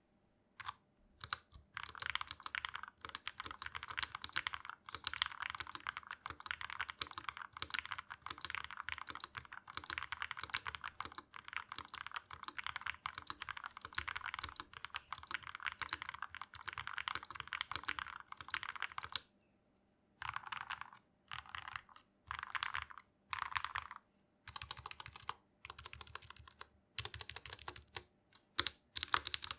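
Typing on a Dareu A87 mechanical keyboard with Gateron Milky Yellow Pro linear switches and PBT keycaps. Fast continuous key clacks for most of the time, then a short pause, a few separate short runs of key presses, and fast typing again near the end.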